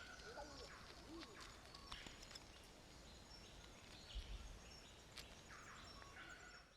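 Near silence: faint outdoor ambience with a few soft, scattered bird chirps, cutting out at the end.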